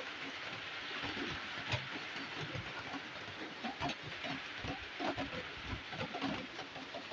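Heavy rain with strong wind: a steady hiss of rain, scattered with irregular spatters of drops and low thuds.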